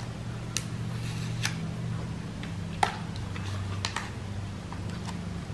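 Light plastic clicks and taps as a folded DJI Mini 3 Pro drone is turned over and handled, a few sharp clicks spread out over the seconds, with a steady low hum underneath.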